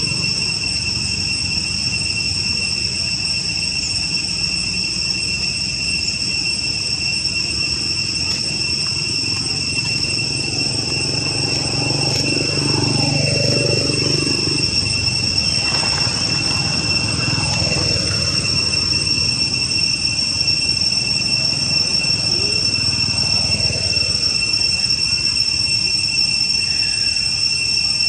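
Steady, high-pitched drone of insects calling without a break, with a low rumble underneath and some fainter sliding sounds in the middle.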